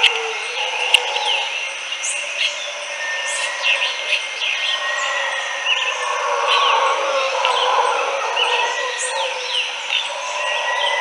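Howler monkeys howling, a dense, drawn-out chorus that swells and eases, under many birds chirping and calling.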